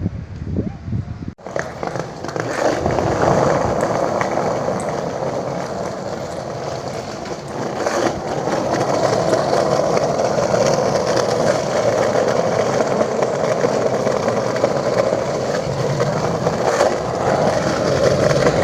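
Skateboard wheels rolling over paving in a steady, continuous rumble, with a few brief clacks.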